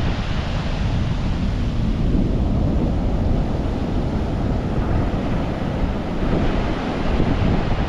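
Sea surf washing onto the beach with wind buffeting the microphone: a loud, steady rush, deepest in the low end.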